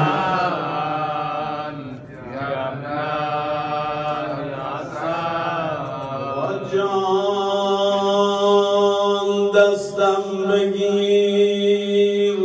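A man's voice chanting a Persian mourning elegy (maddahi) in a long melisma without words: the pitch wavers and bends through the first half, then settles about halfway through into one long steady held note.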